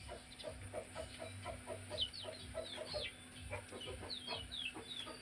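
Chickens clucking in quick, short calls, several a second, with high falling chirps over them now and then.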